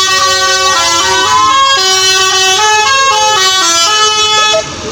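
Tour bus's telolet basuri musical horn playing a quick melody of stepped notes, cutting off about four and a half seconds in.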